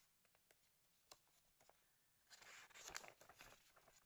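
Near silence with a few faint clicks, then from about two seconds in a soft rustle of paper and plastic packaging being handled.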